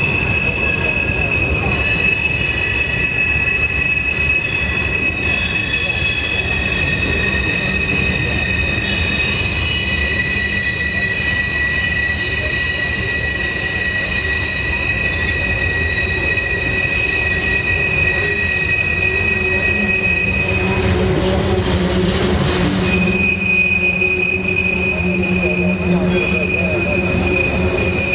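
Steel wheels of container-laden freight cars squealing against the rail on a tight curve, several high-pitched tones held over the steady rumble of the rolling train. The loudest tone drops out for a couple of seconds about three quarters of the way through, then comes back.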